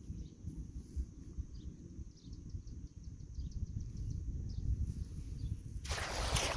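A cast net with a weighted lead line hits the water near the end, a loud rushing splash about a second long. Before it there is only a steady low rumble and faint short chirps.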